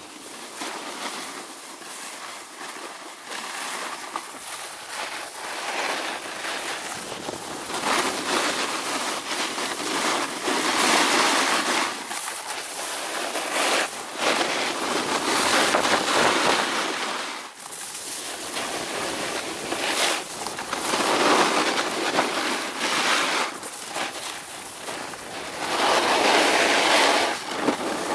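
Snowboard sliding and carving on packed snow, a rushing scrape that swells and fades every few seconds as the board's edge bites in through each turn.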